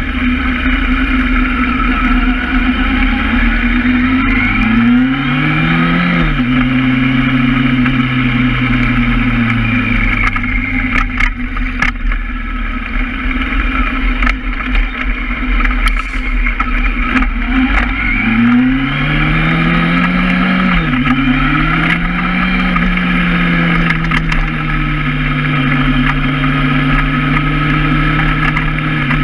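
Honda Hornet inline-four motorcycle engine under way, revs climbing and dropping sharply at an upshift about six seconds in, then running steadily; revs climb again with another upshift around twenty-one seconds in before settling to a steady cruise. Steady wind rumble on the microphone underneath.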